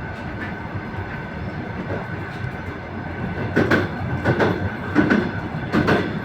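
Passenger train running along the track with a steady rumble, then from about halfway its wheels clattering over rail joints in quick paired knocks: the clickety-clack of the bogies crossing the joints.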